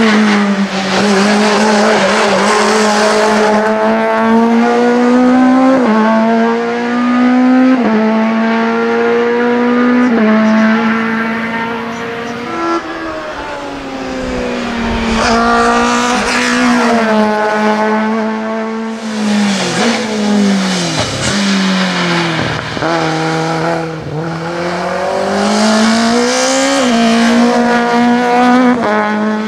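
VW Golf Mk2 hillclimb race car in the two-litre touring class, its engine running hard at high revs. The pitch climbs and drops back over and over as it runs through the gears, with a few sharp downward swoops in the second half.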